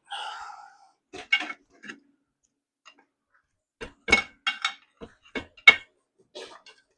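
Hand tools and steel parts clinking and knocking together in a dozen or so sharp, irregular strikes, the loudest about two-thirds of the way through.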